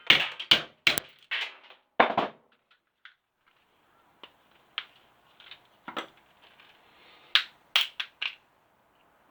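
Brick hammer blows breaking apart an electric shower unit to free its brass and copper parts. A quick run of sharp strikes comes first and another follows at about two seconds. Lighter knocks and rattles come midway, then three more sharp strikes near the end.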